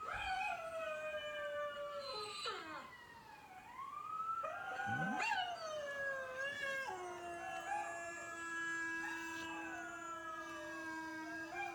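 Several dogs howling at once in long, overlapping howls, played back from a video through a speaker.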